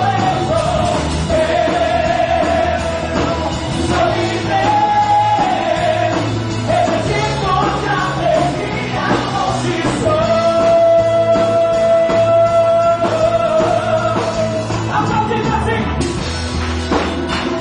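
Worship band playing loud rock-style music with a singer; about ten seconds in the voice holds one long note for several seconds.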